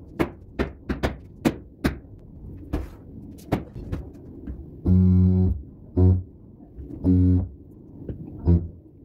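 About seven sharp knocks on the ceramic wall tile in the first few seconds. Then a handheld tile vibrator buzzes against the tile in four short bursts, the first and third longest, to bed the tile into the adhesive.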